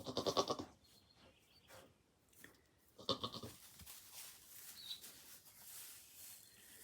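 Goat bleating twice, about three seconds apart: two short, quavering calls.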